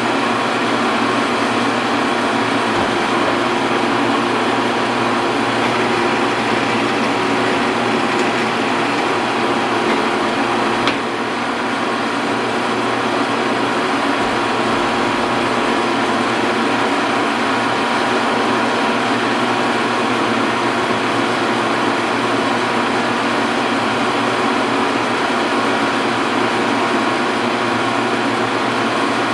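Metal lathe running steadily: a constant mechanical hum with a steady whine, and a single click near the middle.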